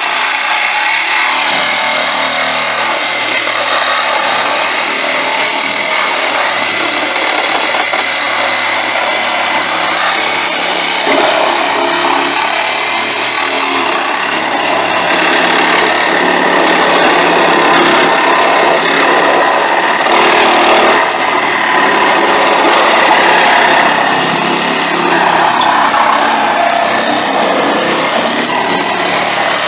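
A power tool cutting, running steadily under load with a loud, dense noise.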